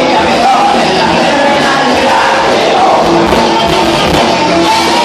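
Loud music played over a sonidero DJ sound system, filling the room at a near-constant level.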